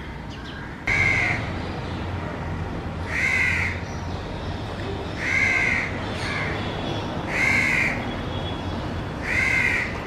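House crow cawing: five loud caws about two seconds apart, each about half a second long, the first about a second in, with a fainter call between the third and fourth.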